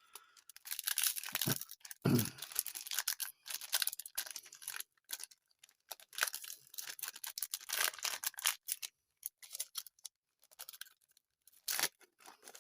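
Plastic trading-card pack wrapper being torn and crinkled open by hand in irregular rustling strokes, a stubborn pack that is hard to open. A low bump about two seconds in.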